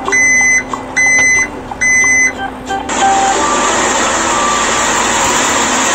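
Three electronic beeps like a reversing alarm, about one a second, over background music. After about three seconds the beeps stop, and a steady hiss with scattered short musical notes carries on.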